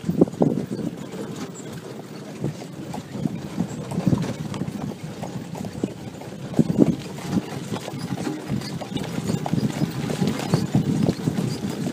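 A harnessed horse's hooves clip-clopping as it pulls a carriage along a dirt track, a continuous uneven run of knocks mixed with the rattle of the carriage and harness.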